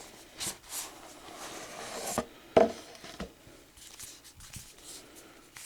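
Cardboard Blu-ray box set packaging being opened and handled: soft rubbing and sliding with scattered light taps and clicks, and one sharper knock about halfway through.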